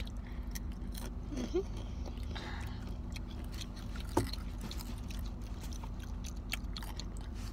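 Chewing and crunching of Takis rolled tortilla chips, a scatter of small crisp crunches over a steady low hum.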